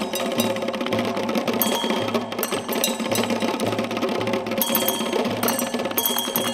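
Improvised noise music from a DIY prepared multichannel speaker system built from recycled cathode-ray-tube television speakers. A dense clicking, rattling texture runs over a low hum that pulses on and off in an uneven rhythm.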